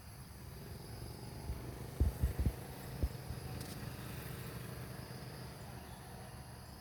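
Outdoor ambience: insects droning faintly and steadily over a low rumble, with a cluster of four dull low thumps about two to three seconds in.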